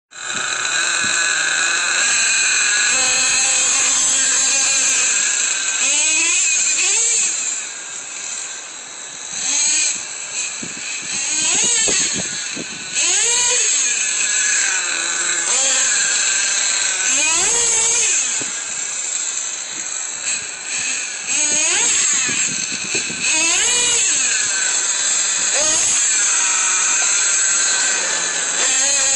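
Small nitro engine of a Traxxas Revo RC monster truck revving up and down over and over as the truck is driven, each rev a quick rise and fall in pitch over a steady high whine.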